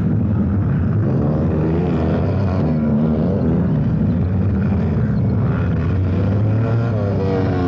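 Several sidecar motocross outfits racing together, their big four-stroke engines of up to 1000 cc revving up and down over a steady loud drone.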